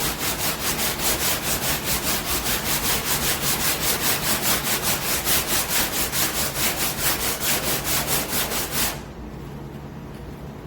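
Hand sanding body filler with a soft sanding block wrapped in 80-grit paper: quick, even back-and-forth scraping strokes, about four or five a second, that stop about nine seconds in.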